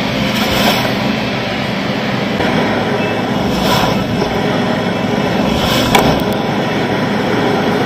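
Honda Africa Twin Adventure Sports' parallel-twin engine running under way on a dirt track, mixed with heavy wind noise on the onboard microphone. Three short louder rushes come about half a second, nearly four seconds and about six seconds in.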